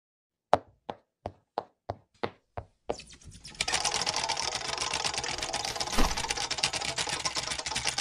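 Cartoon sound effects for an animated logo intro: a run of sharp, evenly spaced clicks, about three a second. From about three seconds in comes a dense, fast clatter of clicks, with one louder thump about six seconds in.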